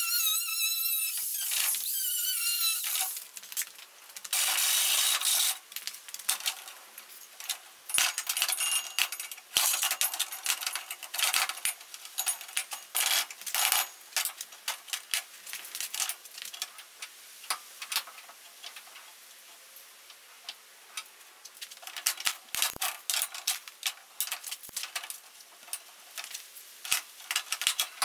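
Metal tools and parts being handled: many scattered light metallic clinks, taps and knocks. A short wavering whine sounds at the start, and a burst of hissing noise follows at about four seconds.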